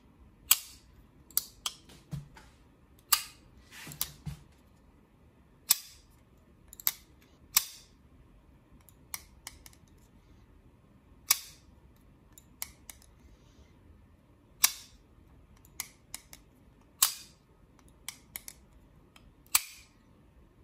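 Custom Spyderco Paramilitary 2 folding knife with titanium scales being flicked open and closed again and again: sharp metallic snaps as the blade swings out and locks, and clicks as it is shut. The snaps are irregularly spaced, some in quick pairs.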